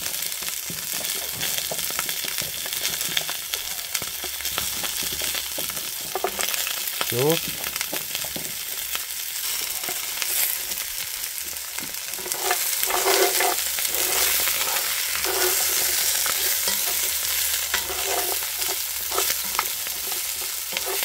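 Oxtail, marrow bones and vegetables sizzling as they sear hard in a pot, the browning stage of a beef stock, with scattered short clicks. The sizzle gets louder from about halfway through.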